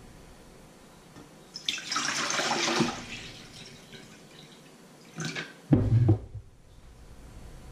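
Water poured from a plastic measuring jug into an enamel bowl, splashing for about a second. About three seconds later come two dull knocks as the jug is set down on the wooden board.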